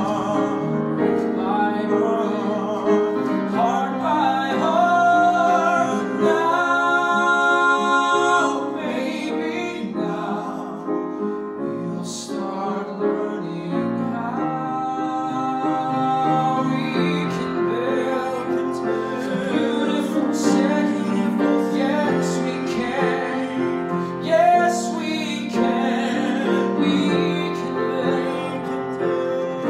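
A man singing a slow ballad into a microphone with live piano accompaniment, holding long notes over sustained piano chords.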